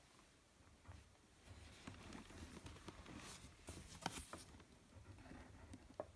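Faint handling of a cardboard shoebox: soft scraping and rustling as it is turned, with a sharp tap about four seconds in and another near the end.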